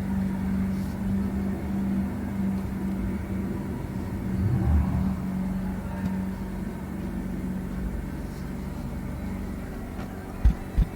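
A car engine running with a steady low hum, the rumble swelling briefly about halfway through, and two short thumps near the end.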